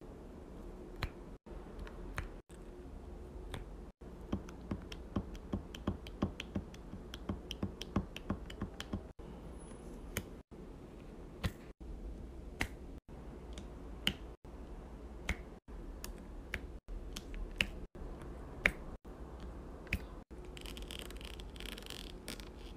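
Diamond-painting drill pen pressing resin drills onto the sticky canvas: a run of small, sharp, irregular clicks and taps, thickest a few seconds in.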